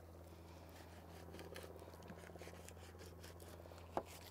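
Faint, repeated scraping of a fillet knife working between a sheepshead fillet and its skin, with a short click near the end, over a steady low hum.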